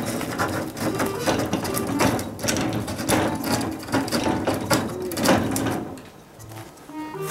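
Cat scratching its claws on a wooden door frame: rapid, rasping strokes of claws on wood that stop about six seconds in.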